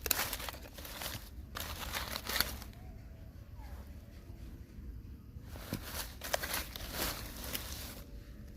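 Crinkling, rustling noises in three stretches, the longest near the end, over a low steady hum.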